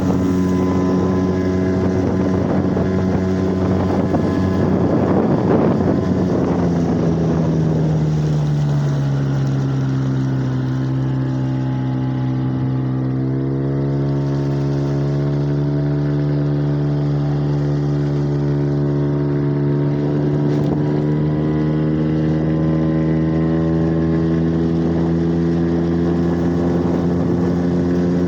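HDX 5 hp outboard motor running under way: its pitch drops at about eight seconds as it is throttled back, then steps up again about halfway through and holds steady.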